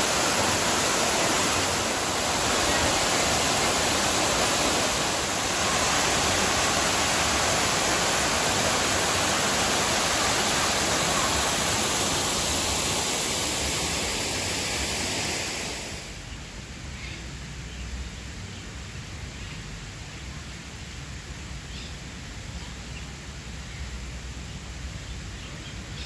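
Artificial waterfall pouring into a rock pool: a steady, loud rush of falling water. About two-thirds of the way through it drops off sharply, leaving quieter open-air background with a few faint high chirps.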